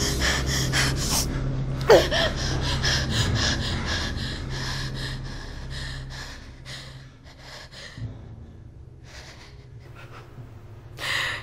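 A person's rapid, heavy gasping breaths, with one voiced gasp about two seconds in; the breathing slows and fades over the following seconds.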